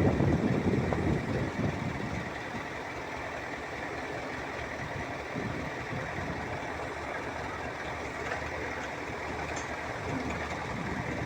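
Heavy machinery engine running, loudest in the first two seconds and then settling to a steady level.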